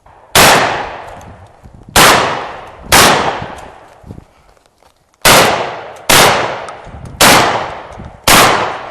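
Seven 12-gauge shotgun shots from a Benelli Vinci semi-automatic shotgun, fired at an uneven pace with gaps of about one to two seconds. Each shot rings out and fades before the next.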